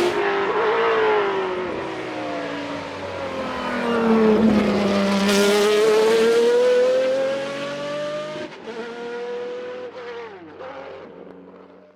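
Historic racing car engine at speed: its pitch drops over the first few seconds, then climbs steadily as the car accelerates, before the sound fades away toward the end.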